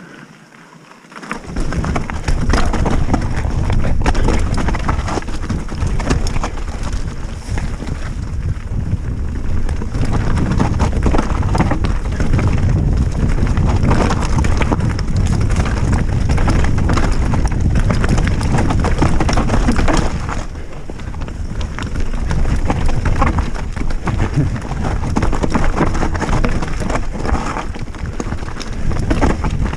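Specialized Stumpjumper mountain bike ridden fast down a rough forest trail: a dense rattle and knocking of the bike over roots and bumps, with tyre and wind rumble. It is quieter for about the first second and a half, then loud and busy.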